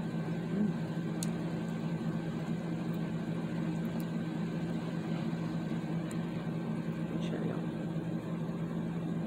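Electric fan running with a steady hum, a few faint light clicks heard over it.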